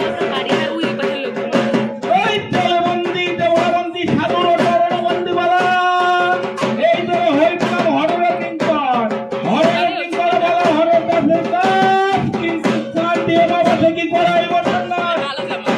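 Fast, dense drumming with a high, wavering melody line held over it: festival music.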